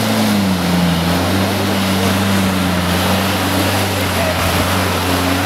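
Off-road 4x4 engine running under load as the vehicle churns through deep mud: a steady drone that dips slightly in pitch about half a second in, then holds.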